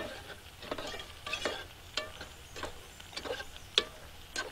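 Metal spoon stirring pasta in a steaming metal pot, scraping and clinking against the pot's sides in irregular strokes, with a couple of sharper knocks.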